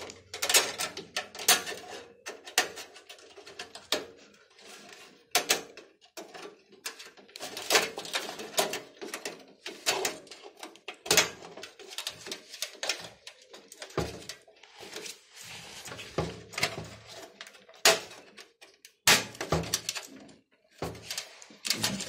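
Thin stamped-steel motherboard I/O shield being pressed and snapped into the rear opening of a steel PC case, giving many sharp, irregular clicks and knocks.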